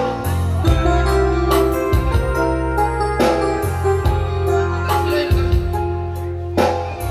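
Music: a song carried by electronic keyboard over a strong held bass line, with drum hits coming every second or so.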